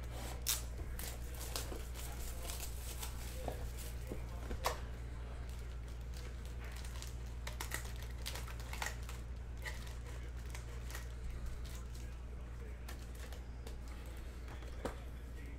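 Cardboard trading-card box being opened and its foil card packs handled, with scattered crinkles and light clicks over a steady low hum.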